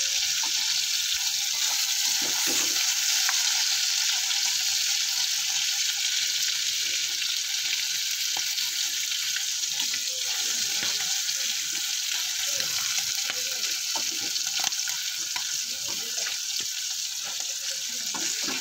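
Prawns coated in salt and turmeric frying in hot oil in a kadai: a steady sizzle with scattered small crackles, and now and then a metal spatula scraping as they are turned.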